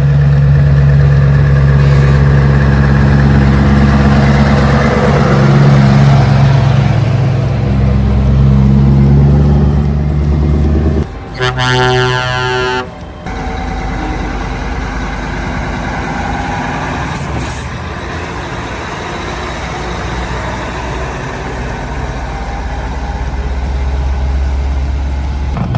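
Heavy truck engine running loud and steady, then a truck horn sounds for about two seconds near the middle, after which a quieter, steady engine and road rumble goes on.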